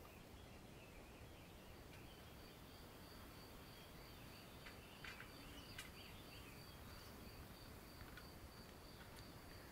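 Near silence: faint garden ambience with a thin, steady high tone setting in about two seconds in, faint chirps, and a few soft clicks.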